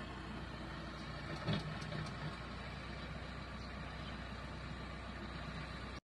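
Four-wheel-drive farm tractor's diesel engine running steadily, with a short thump about a second and a half in.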